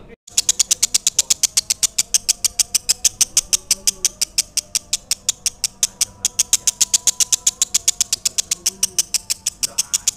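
A lovebird's long, rapid chattering trill: sharp, high-pitched notes repeated very evenly at about eight a second, after a brief break right at the start.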